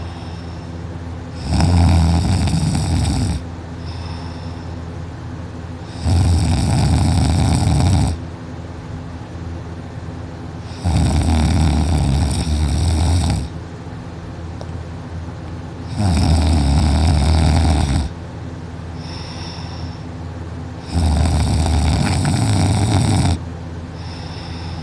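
A person snoring heavily in deep sleep: five loud snores, each about two seconds long, coming roughly every five seconds, with a steady low hum underneath in between.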